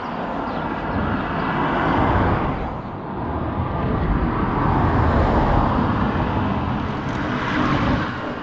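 Road traffic rushing past, a dense noise that swells and fades about three times.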